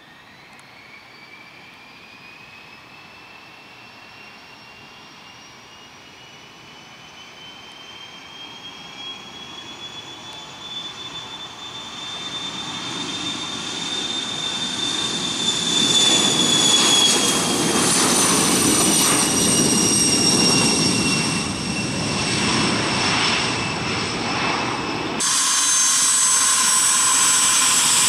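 Learjet 31A business jet's twin turbofan engines departing: a high whine that climbs in pitch and grows louder as the jet approaches, loudest about sixteen seconds in, then drops in pitch as it goes by. Near the end there is a sudden cut to a louder, steady jet sound.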